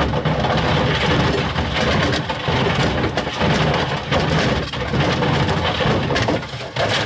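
White Knight tumble dryer running with bricks, stones and hammers tumbling in its drum: a loud, continuous clatter of knocks and bangs over the motor's rumble.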